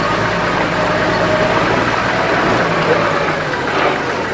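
A motor vehicle driving, its engine and road noise running steadily.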